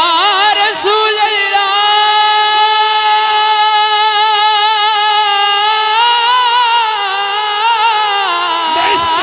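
A man singing a naat unaccompanied, drawing out one long high note over a few seconds with a wavering vibrato at its start, then letting it fall away near the end.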